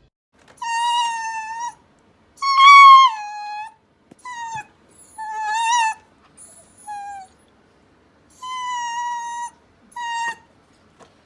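A dog whining in a series of high, drawn-out whimpers, about eight of them with short pauses between. The second whine is the loudest and slides down in pitch at its end.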